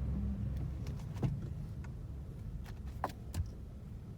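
Low, steady rumble of a car driving, slowly fading, with a few light clicks.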